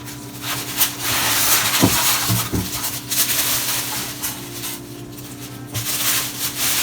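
Packaging rustling and rubbing as a cold brew coffee maker is unwrapped and handled, in long stretches with a few light knocks about two seconds in.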